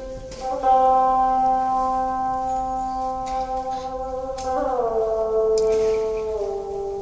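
Đàn bầu, the Vietnamese monochord, sounding a single long sustained note that slides down in pitch about four and a half seconds in, then steps lower again near the end.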